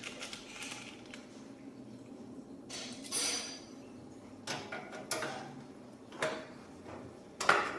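Metal clinks and knocks of a PC power supply being handled and fitted into a steel computer case, about half a dozen separate taps and clunks, one about three seconds in with a short metallic ring.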